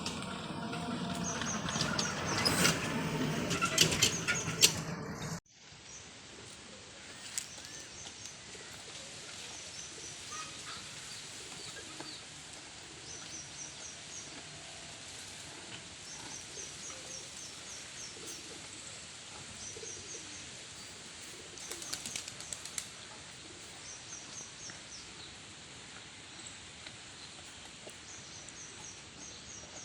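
A loud rustling, crackling noise full of clicks for about five seconds that cuts off abruptly. Then a quieter outdoor background in which a small bird repeats short, high, rapid trills every few seconds, with a brief patch of clicks about two-thirds of the way through.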